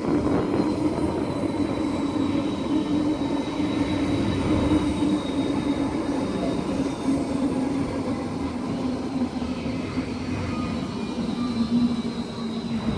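Alstom Citadis X05 light-rail tram pulling into a stop, with a steady electric motor hum that falls slightly in pitch as it slows, over rolling noise.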